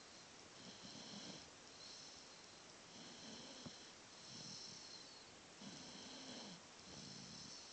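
Faint, regular snoring, about six snores in a row, one every second or so.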